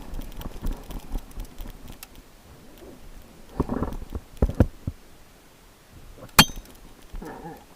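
Scattered short knocks and clicks of gear being handled, with a cluster of knocks around the middle. Late on comes one loud, sharp metallic clink that rings briefly.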